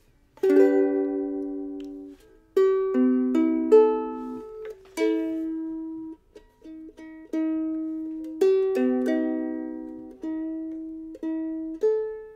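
Ukulele strummed in a series of chords, each left to ring and fade, with a few short strums cut off quickly a little past halfway. The instrument is out of tune.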